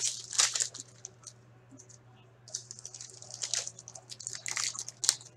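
Glossy trading cards sliding and flicking against each other as a pack is squared up and flipped through by hand. A few quick papery flicks come first, then after a pause of about two seconds a longer run of rustling, with card edges snapping.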